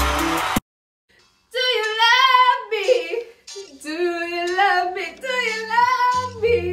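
Music cuts off about half a second in. After a second of silence a woman sings solo in a mock-diva style, with long held high notes that waver in pitch. Low steady tones come in underneath near the end.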